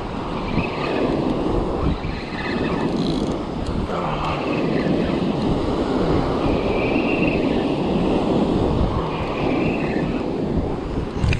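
Surf breaking on a beach, with wind buffeting the microphone.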